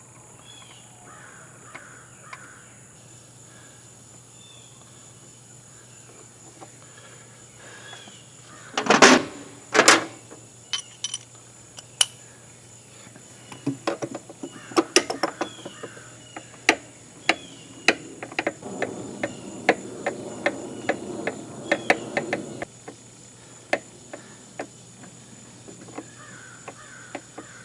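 Two loud harsh calls about nine and ten seconds in, then a string of sharp clicks and taps from hand work on the outboard's parts, with faint bird chirps behind.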